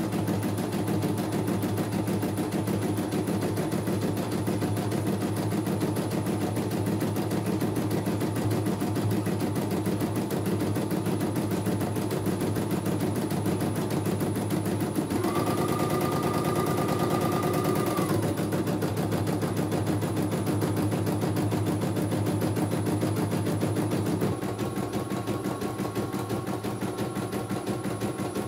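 CNY E900 computerized embroidery machine stitching a design, its needle hammering in a rapid, steady run of strokes. A steady whine joins in for about three seconds around the middle. A little past three-quarters of the way in, the stitching gets slightly quieter and a faint steady hum is added.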